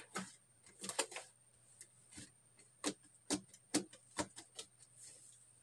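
Hands kneading and squeezing a fluffy shaving-foam slime, giving a string of sharp, wet pops and clicks at irregular intervals, coming quickest and loudest in the second half.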